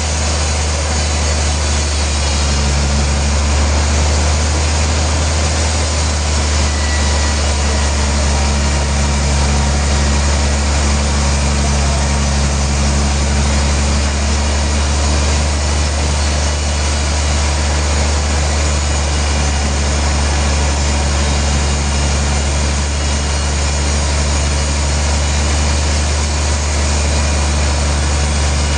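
Sawmill machinery running steadily under power, a loud deep hum with a wide hiss over it that holds even throughout.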